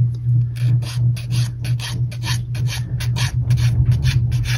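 Needle file rasping in short quick strokes, about three or four a second, along the edge of a small laser-cut wooden part, smoothing its contour and the leftover attachment points. A steady low hum runs underneath.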